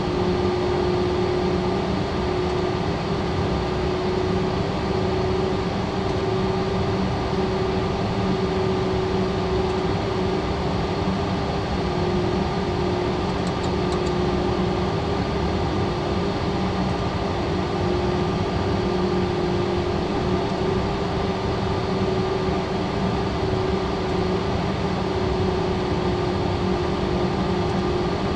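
Steady cockpit noise of a Cessna Citation Latitude business jet on approach: airflow and the hum of its two Pratt & Whitney Canada PW306D1 turbofans, with a low steady tone that wavers slightly.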